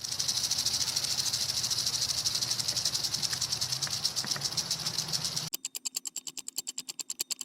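Rattlesnake shaking its tail rattle: a fast, continuous, high buzzing hiss. About five and a half seconds in it cuts off abruptly and gives way to a run of separate, evenly spaced sharp clicks, about ten a second.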